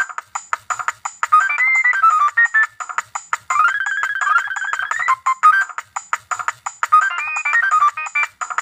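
Nokia 3595 mobile phone playing a ringtone through its speaker: a fast electronic melody over a clicking beat, with a note sliding upward about four to five seconds in.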